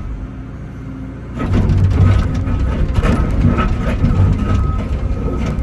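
Excavator engine running steadily, with loud irregular clanking and knocking that starts about a second and a half in, typical of a machine working concrete.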